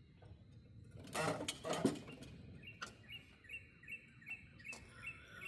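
A small bird chirping: short high calls repeated evenly, about two and a half a second, starting a couple of seconds in. Before them come a few clattering knocks of handling.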